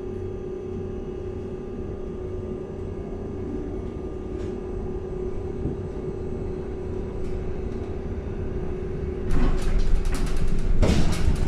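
Cabin noise of a LiAZ-6274 electric bus under way: a steady hum with one unchanging tone over a low rumble. From about nine seconds in it turns louder, with a run of rattles and knocks from the bus body.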